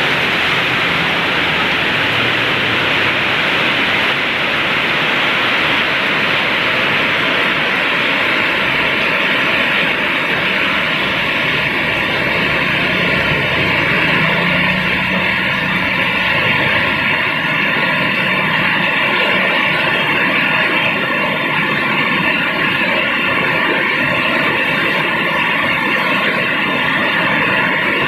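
Heavy downpour with strong wind: a loud, steady rushing noise of rain and wind that holds without a break.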